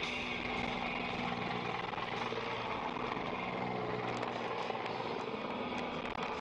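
Steady road and engine noise inside a car driving at highway speed.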